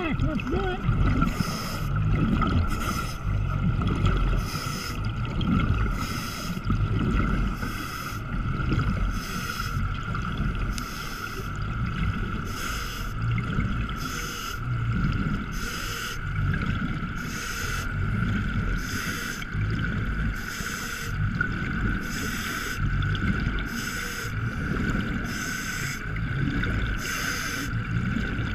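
Underwater sound during a dive: a steady hum with a regular hissing pulse a little over once a second, over an uneven low rumble of water moving past the microphone.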